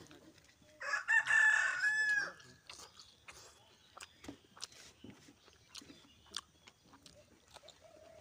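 A rooster crowing once, a single call of about a second and a half starting about a second in, followed by soft clicks and smacks of eating by hand.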